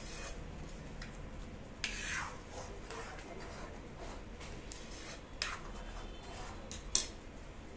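Steel spoon stirring thick kheer in a steel pan, with a few short scrapes and clinks of the spoon against the pan: one about two seconds in, then more about five and a half and seven seconds in.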